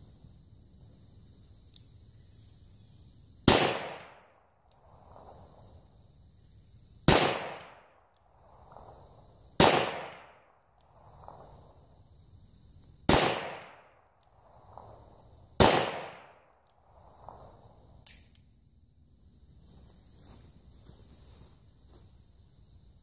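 Five shots from a Rossi 971 .357 Magnum revolver, fired at uneven intervals of about two to three and a half seconds, each with a short fading echo. The handloads are light: 4.1 grains of Clay Dot shotgun powder under a 126-grain cone-nose bullet.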